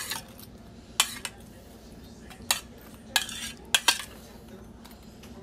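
Metal spoon clinking and scraping against a stainless steel saucepan as barbecue sauce is spooned over a chicken strip, about seven sharp clinks spread out irregularly.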